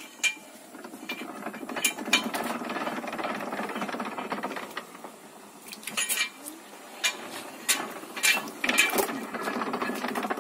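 Rubber sheet roller mill's cast-iron gears and ribbed rollers turning with a gear clatter and sharp clicks, as a wet sheet of natural rubber is pressed through to squeeze out its water and imprint the roller pattern. The clatter sets in about a second and a half in, eases near the middle and picks up again.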